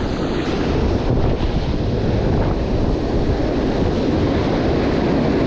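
Wind buffeting the microphone over breaking ocean surf: a loud, steady rushing noise.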